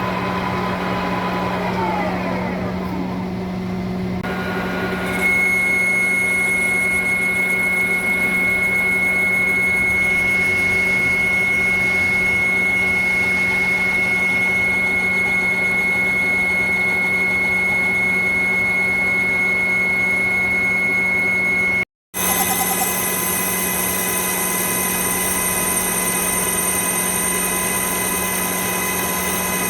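Machine tool motor and gearing running with a steady hum and whine. The pitch falls as it winds down in the first few seconds, then it runs steadily at a higher level from about five seconds in, broken once by a brief dropout past the middle.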